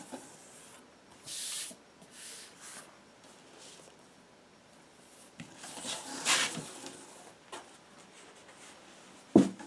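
Cardboard packaging of a large vinyl box set being handled: a few rustling, sliding scrapes, the biggest about six seconds in, then a single sharp knock near the end.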